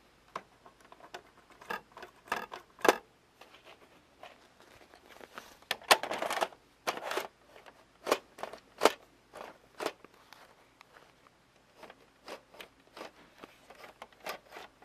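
Irregular clicks, knocks and a scraping rustle of hands handling the parts of an opened VCR.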